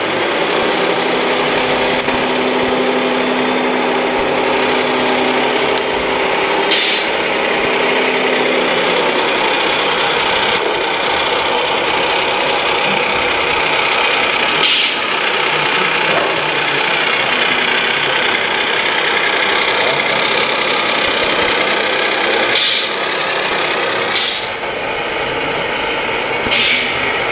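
Radio-controlled model truck running: a steady mechanical drone, with a low engine-like hum through the first nine seconds or so and a few brief hissing sounds.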